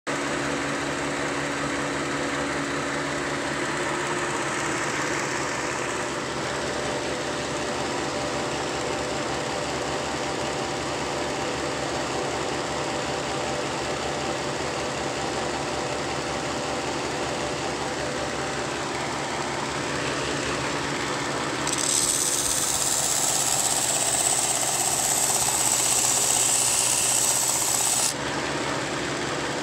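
Shop-built belt sander running, its electric motor and sanding belt humming steadily. About 22 seconds in, a piece of wood is pressed to the belt and sanded with a loud hiss for about six seconds, which stops suddenly.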